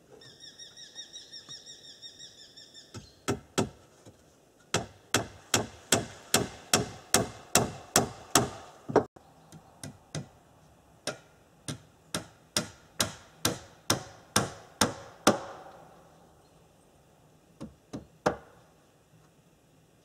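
A hammer drives nails into wooden roof boards: a run of sharp, steady blows, about two to three a second, with a short pause about nine seconds in and two last blows near the end. Before the hammering starts, a high trilling tone runs for about three seconds.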